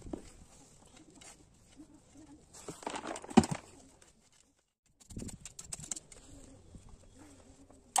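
A pigeon cooing faintly in snatches, with rustling and handling noise from the potted jade plant and a sharp knock about three and a half seconds in.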